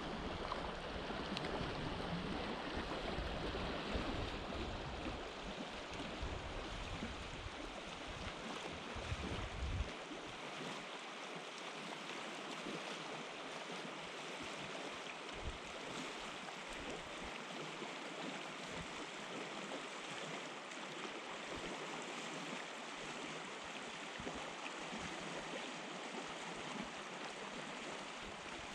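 Steady rush of flowing river water, with a low rumble under it that stops about ten seconds in.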